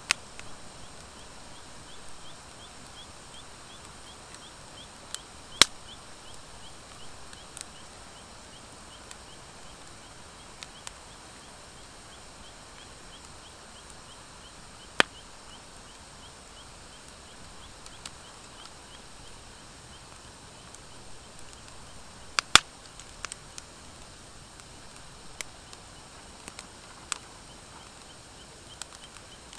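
Wood fire of driftwood and dry hardwood logs burning: a steady low hiss with scattered sharp crackles and pops. The loudest pops come about five and a half, fifteen and twenty-two seconds in.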